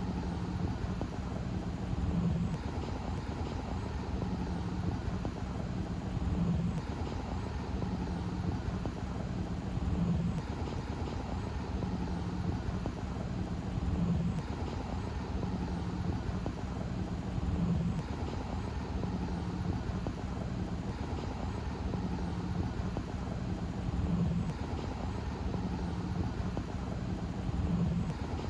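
A steady mechanical drone with a low hum, swelling briefly about every four seconds.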